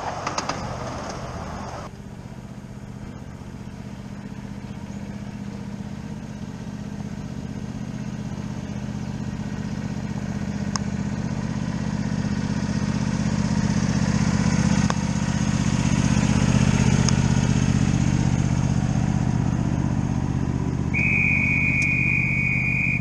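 Miniature railroad train drawing near, a steady low engine drone growing louder, then a steady high whistle blown once for about two seconds near the end.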